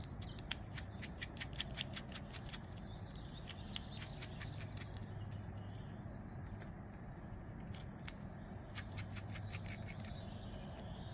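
Small Torx screws being backed out of a folding knife's handle with a T8 driver: runs of quick, light metallic clicks, thickest near the start and again late on, over a steady low hum.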